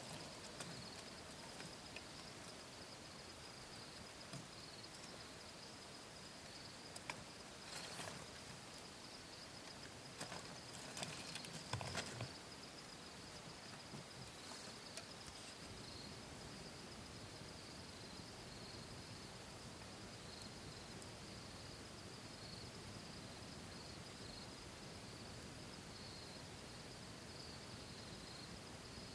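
Insects chirring steadily, a faint high continuous trill over quiet outdoor air. A few brief rustles or knocks come about eight seconds in and again around ten to twelve seconds in.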